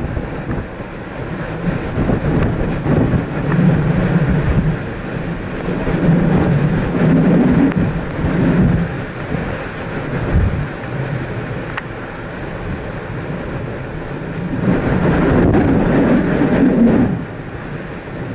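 Hurricane-force wind roaring in repeated gusts, surging and easing, with the loudest surge near the end, and wind buffeting the microphone.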